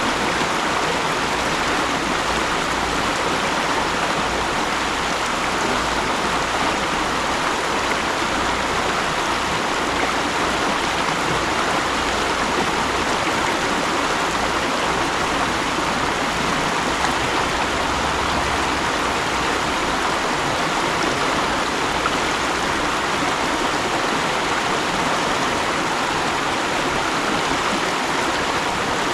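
Mountain stream flowing over rocks: steady rushing and babbling water.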